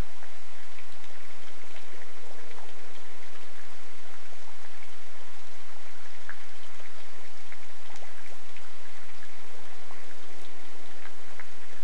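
Steady rain falling, with many individual drop hits ticking through it.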